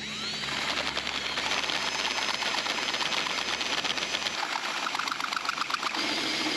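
DeWalt 20 V cordless drill turning a 1 7/8 in bimetal hole saw cutting through the well casing. The motor spins up with a rising whine, then the cut runs with a steady high squeal and rapid, even chatter from the saw teeth biting the metal.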